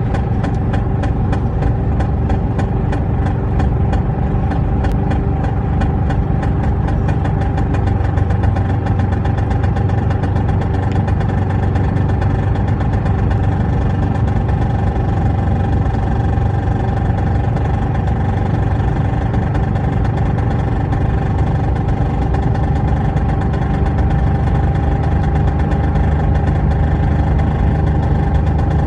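Range Rover P38's 4.6-litre V8 running under load while driving, with a steady loud drone that comes at 2,000 rpm and above under load; the engine note steps up a little about 24 seconds in.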